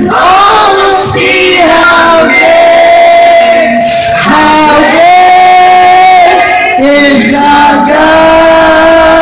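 A young man singing loudly into a handheld microphone, holding long sustained notes.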